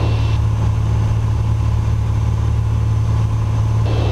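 Piper PA-28-236 Dakota's Lycoming O-540 six-cylinder engine and propeller droning steadily in cruise flight, a constant low hum heard inside the cabin.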